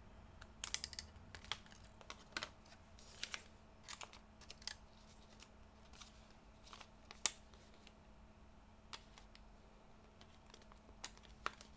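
Irregular small clicks and taps from hands handling a laptop's internal parts, dense for the first few seconds and then sparse.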